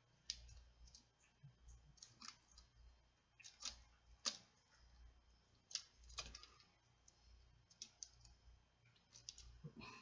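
Faint, irregular clicks and ticks of a small hand tool and plastic and metal parts inside a Kato No. 6 model railroad turnout as a part is worked back into place.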